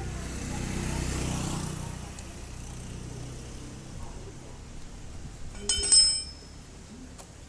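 A low rumble swells and fades over the first couple of seconds. About six seconds in comes a sharp metallic clink that rings briefly: a steel tool or bolt striking metal while the scooter's rear shock is being unbolted.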